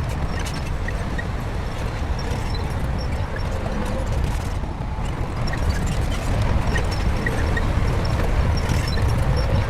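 Shantui crawler bulldozer working: a steady low diesel engine rumble with light knocks from the steel tracks, getting a little louder toward the end.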